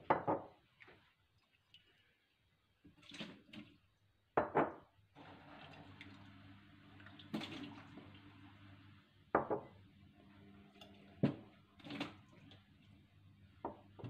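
Water sloshed and poured out of glass jars, with the jars knocking and clinking as they are handled and set down on the countertop, about eight separate sounds. A faint steady hum sits underneath from about five seconds in.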